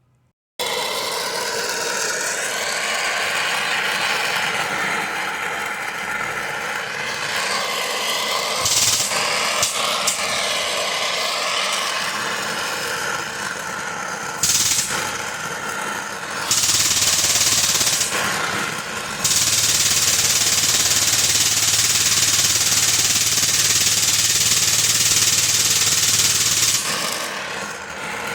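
A pneumatic tool starts suddenly and hammers continuously on a stuck wheel-bearing race, working it off the hub. It gets louder and hissier in two long stretches in the second half.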